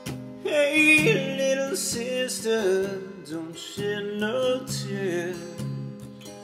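A man singing over a strummed acoustic guitar. The voice comes in about half a second in and fades near the end.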